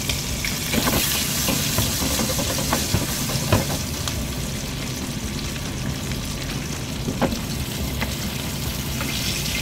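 Chicken breast searing in a frying pan of melted butter and bacon grease: a steady sizzle with scattered sharp pops and spits.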